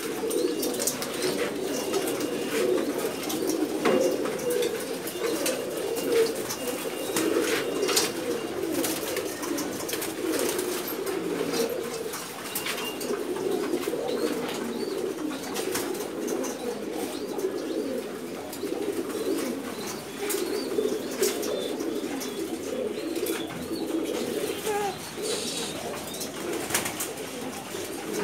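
Many caged domestic pigeons cooing together in a steady, overlapping chorus, with scattered sharp clicks over it.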